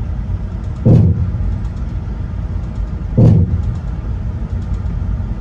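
Steady low rumble of a Boeing 747-8 flight simulator's engine and flight sound, broken by two heavy thumps about a second in and about three seconds in. The thumps fit the simulated compressor surge bangs of the No. 4 GEnx engine while its thrust lever is still above idle.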